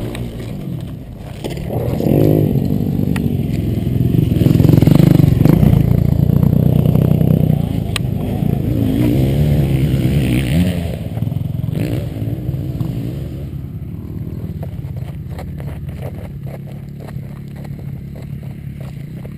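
Another motocross bike's engine coming closer, loudest about five seconds in, then fading away as it rides off.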